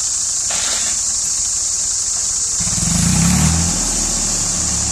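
Massey Ferguson tractor's diesel engine running, revving up a little past halfway and settling back to a steady run near the end, over a steady high hiss.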